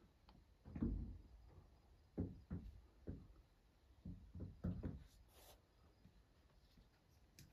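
Several soft, low thumps and bumps at irregular intervals, clustered about a second in and again between two and five seconds in, over a quiet background.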